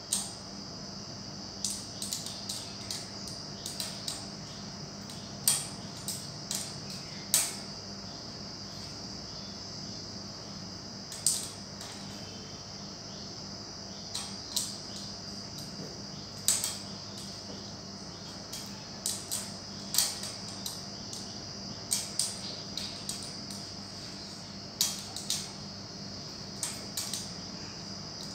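Irregular sharp clicks and light knocks, some in quick clusters, from kittens playing around a metal ladder and batting at small objects hanging on strings, over a steady high-pitched background drone.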